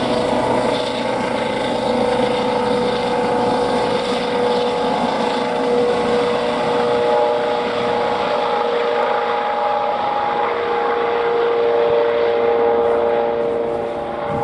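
Airbus H135 (Eurocopter EC135) helicopter running, its twin turbine engines giving a steady whine over the rotor and exhaust noise.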